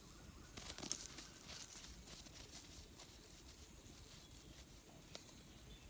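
Faint crackling and rustling of the dry forest floor being disturbed, with a cluster of crackles about a second in and a few single clicks after.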